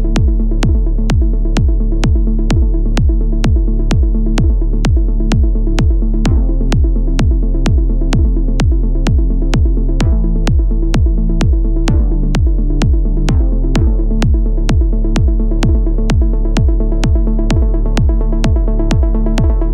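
Minimal techno track: a steady four-on-the-floor kick drum at about two beats a second, under a repeating bass line and sharp high ticks on the beat.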